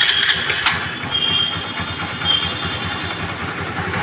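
Honda Dream Yuga's freshly rebuilt single-cylinder four-stroke engine just after starting on the electric starter, louder and uneven for about the first second, then idling steadily. It runs without the crank knock that new crank bearings and a new connecting rod were fitted to cure.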